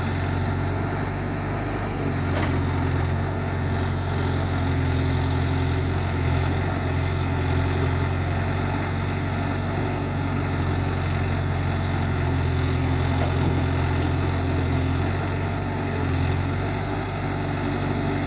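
Diesel engine of a Case 851EX backhoe loader running steadily with a low, even hum, dipping slightly in level now and then.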